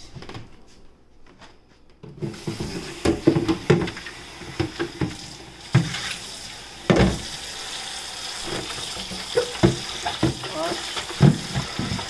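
Tap water running into a kitchen sink while a refrigerator crisper tray is washed out. The water starts about two seconds in, with knocks and clatter of the tray handled in the sink and one louder knock near the middle.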